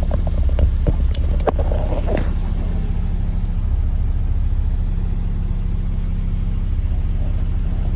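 Steady low hum of an idling engine, with a few brief sharp sounds about one to two seconds in.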